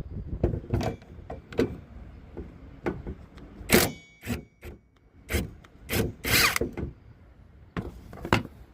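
Irregular metal knocks and clanks from hand tools and parts being handled during car suspension work, one loud clank about four seconds in ringing briefly.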